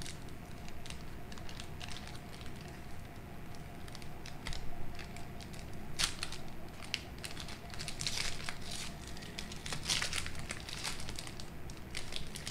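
Foil wrapper of a Panini Prizm Sparkle trading-card pack crinkling and tearing as it is opened by hand, with scattered crackles and louder ones about six, eight and ten seconds in.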